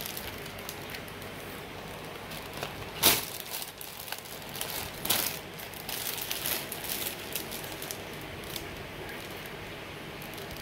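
Clear plastic bag around a bicycle helmet crinkling and rustling as it is handled, in irregular bursts with the loudest crackle about three seconds in.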